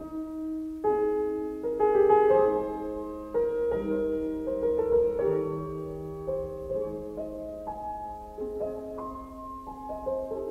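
Background music: a slow piano melody of held notes, a new note every half second to a second.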